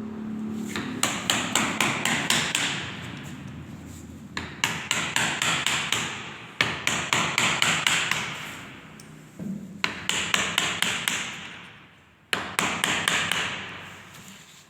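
A hammer striking in quick runs of light blows, about five runs of several taps each, during upholstery work on a sofa frame.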